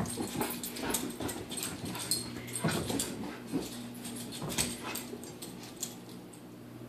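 American Bulldog running about on carpet: scattered thuds and scrabbles of its paws, with a few soft whimpers.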